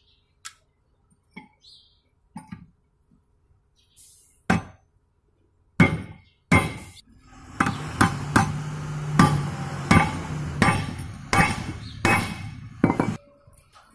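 Hammer blows on a punch, setting the rivets that hold a new lining on a Tata 1210 truck's steel brake shoe. A few light taps come first, then about a dozen heavy blows with a metallic ring, roughly one every half second to a second, from about six seconds in.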